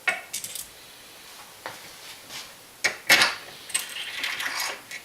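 Small metal hardware and tools clinking and clattering: about half a dozen sharp, irregular clinks with a bright ring, as lag bolts and parts are handled while mounting a reloading press to the bench.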